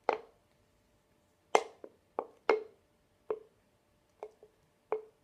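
A nearly empty plastic squeeze bottle of slime glue being squeezed hard, spurting air in about nine sharp, irregular pops, each with a brief low ring, because the last of the glue won't come out.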